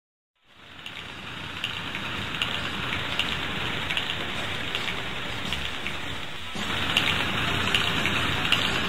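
Steady rain fading in just after the start, with scattered light ticks, growing louder about six and a half seconds in.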